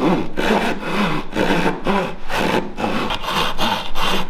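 Japanese pull saw crosscutting a board, in steady back-and-forth strokes about two a second. The teeth cut on the pull stroke, and each stroke gives a rasp that rises and falls in pitch.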